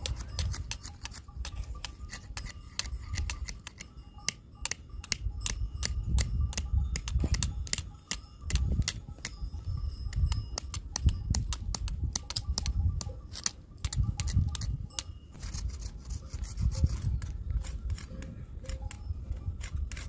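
Knife blades shaving thin wooden sticks into skewers: many short, sharp scraping clicks, several a second, over a low rumble.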